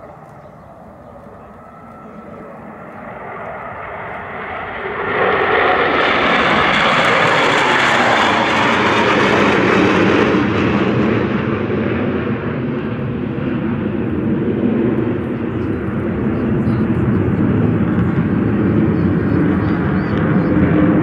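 A close formation of Sukhoi twin-engine fighter jets passing overhead. Their jet noise swells from about four seconds in and becomes loud within a second, its pitch falling as they pass. It then carries on as a steady low rumble.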